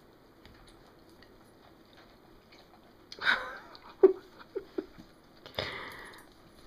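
Two dogs licking and mouthing at each other's faces. Quiet at first, then two short noisy bursts a couple of seconds apart, with a few brief low sounds between them.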